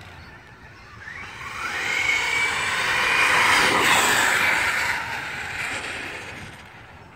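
Traxxas Summit RC monster truck with a brushless motor on a 4S battery driving past at speed: a high electric whine over tyre noise on asphalt. It rises as the truck approaches, is loudest as it passes close about four seconds in, then drops in pitch and fades as it drives away.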